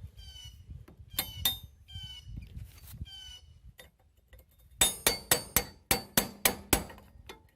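Hammer striking a steel punch to drive a part off a Craftsman T1400 riding mower's axle: a quick run of about ten sharp metallic blows, a little under four a second, starting about five seconds in.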